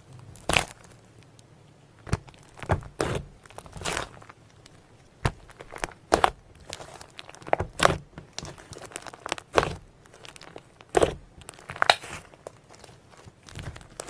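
Slime being squished and stretched: irregular crackling and sharp, sticky popping clicks, about one or two a second.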